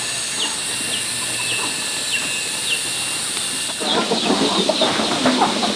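Chickens: short falling peeps repeated about twice a second over a steady high hiss, then from about four seconds in a louder rustling, clattering noise.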